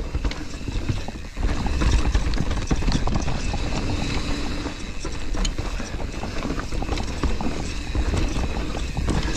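Mountain bike riding down a rough, rocky trail: a dense clatter of the tyres, chain and frame knocking over rocks and roots, over a low rumble. It dips for a moment about a second in, then runs louder.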